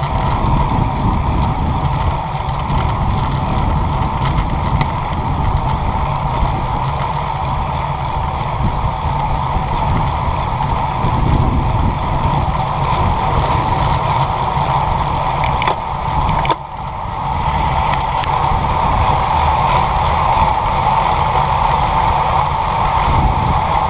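Steady rush of wind and tyre noise picked up by an action camera mounted on a road bike rolling along pavement. There is a brief drop in the noise about two-thirds of the way through.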